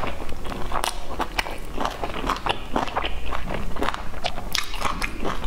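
Close-miked chewing with quick, irregular wet smacks and clicks from lips and mouth, several a second.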